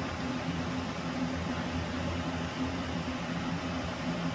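ILG Model 123 XQ explosion-proof fan running steadily: a low motor hum under the rush of air from the blades. Freshly rebuilt with new bearings, it runs smooth and quiet, with no bearing noise.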